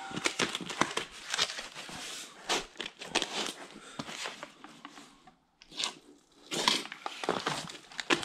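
Foil-faced StP Master sound-deadening sheets being handled and slid over one another and over cardboard: irregular rustling, with a short lull about five seconds in.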